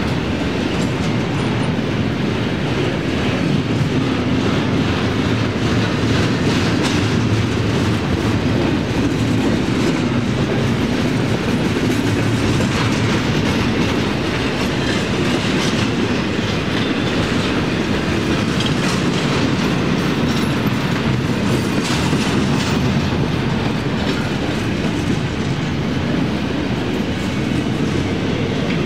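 Union Pacific intermodal freight train rolling steadily past, its wheels clicking and clattering over the rail joints under a continuous rumble.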